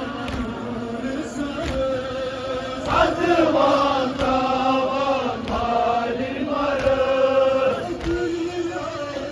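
Men's voices chanting a Kashmiri noha, a Shia mourning lament for Muharram, in long, wavering melodic lines that grow louder about three seconds in. Sharp slaps about once a second keep time under it, from the mourners beating their chests (matam).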